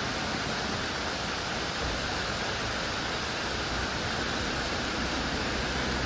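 Steady rush of flowing stream water, an even noise with no calls or knocks in it.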